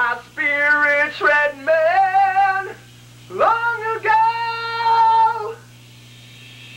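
A man singing high, held notes with vibrato into a microphone, in two phrases, the second a long sustained note that stops about five and a half seconds in. A steady low hum runs underneath.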